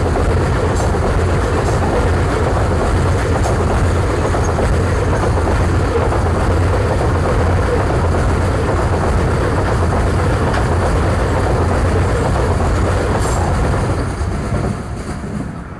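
Coal-laden freight wagons of a long train rolling past at speed, a steady noise of steel wheels on rails with a few faint clicks. It begins to drop off near the end as the last wagons go by.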